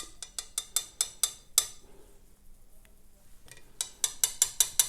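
Quick metallic clicks and clinks of small brass lock pins and a padlock core being handled while a sticky pin is worked out. They come in two bursts: about eight in the first second and a half, then a faster run of about seven near the end.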